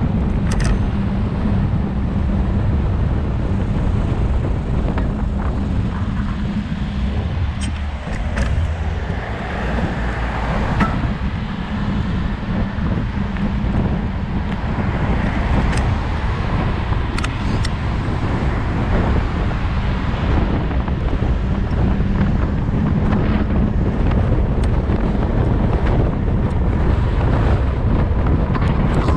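Wind rushing over the microphone of an e-mountain bike riding downhill, with the rolling hum of its knobby tyres on asphalt and passing cars.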